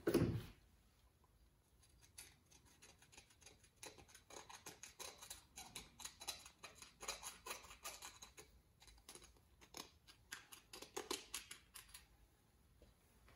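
A small metal pick scratching and scraping inside a motorcycle brake caliper's piston bore, digging built-up deposits out of the seal groove: a long run of short, irregular metallic scratches. It opens with a single knock.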